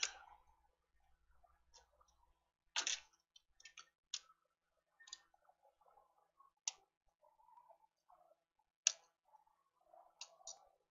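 Scattered small sharp clicks and taps, about seven of them spread a second or so apart, with faint rustling in between, from small tools and parts being handled.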